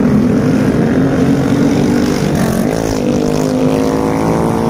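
A vehicle engine running loudly and steadily, its pitch dipping and then climbing again about two and a half to three seconds in.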